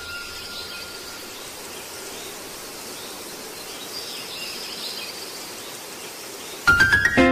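Outdoor ambience: a steady hiss with faint high chirps. Music cuts in abruptly near the end with a few loud struck notes.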